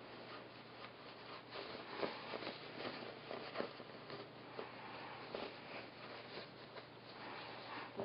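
Faint, scattered rustling and rubbing of a terry-cloth and cotton washcloth being handled and turned right side out.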